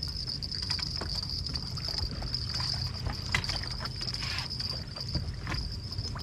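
Ambience aboard a fishing boat on a lake: a steady low rumble under a steady high-pitched insect drone, with scattered light knocks and clicks of tackle and gear.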